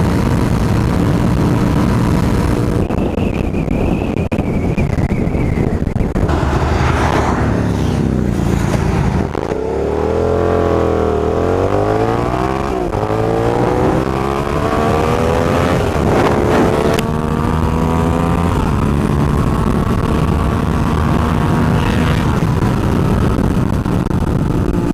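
Suzuki SV650 V-twin motorcycle running at highway speed under heavy wind rumble on the microphone. About ten seconds in, the engine pitch drops and climbs in several sweeps over roughly seven seconds, then settles back to a steady cruise.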